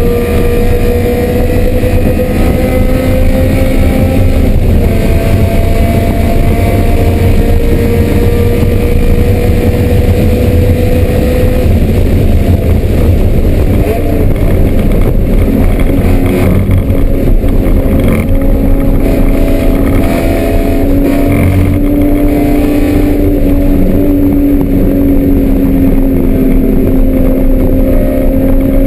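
BMW M3 race car engine running hard on track, loud and continuous, its note climbing slowly and stepping down a couple of times.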